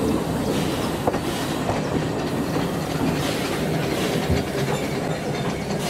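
Narrow-gauge Talyllyn Railway carriage running along the track, heard from on board: a steady rumble of wheels on rail with clacking over the rail joints.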